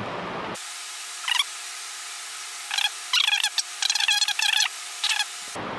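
Wet squelching and squeaking of grease as a tapered roller bearing is hand-packed, pressed into a palmful of grease and worked around so the grease is forced through the rollers. It comes as a run of short, high squeaks, once just after a second in and then in a cluster in the second half.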